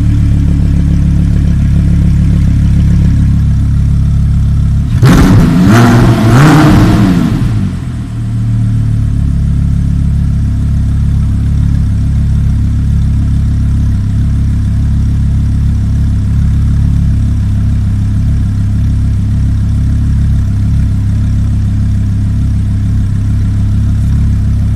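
Audi R8's 5.2-litre V10 engine idling, blipped two or three times in quick succession about five seconds in, then settling back to a steady, slightly lower idle.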